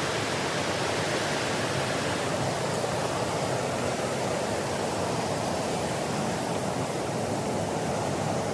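Steady rushing of flowing water, like a mountain stream or cascade, an even unbroken rush.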